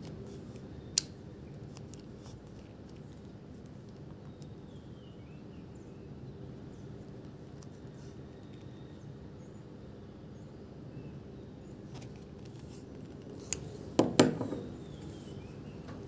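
Automatic belt buckle being handled: one sharp click about a second in, then a cluster of louder clicks and rattles near the end as the clasp and lever are worked, over a steady low hum.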